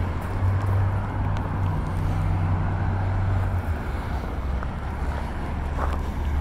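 Wind rumbling on the microphone, with the low steady hum of a motor vehicle's engine from traffic underneath; the hum drops in pitch a little over halfway through.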